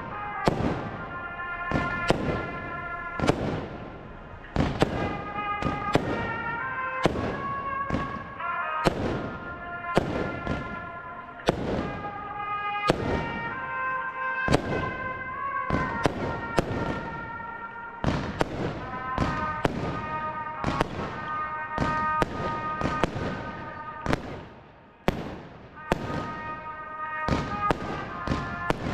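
Aerial fireworks shells bursting in a steady string, about one bang a second, sometimes two close together. Music plays underneath from the village public-address loudspeakers.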